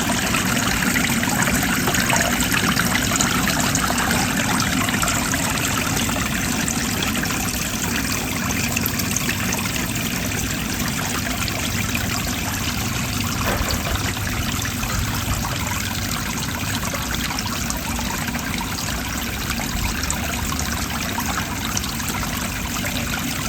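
Steady, loud rushing noise.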